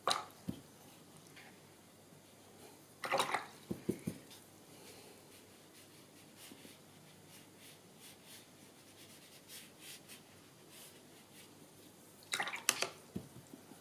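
Paintbrush being rinsed and knocked about in a water pot: short clusters of clinks and small splashes about three seconds in and again about a second before the end, with faint room quiet between.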